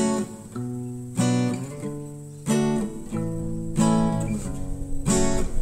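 Background music: acoustic guitar strumming chords, a new strum about every second and a bit, with no singing.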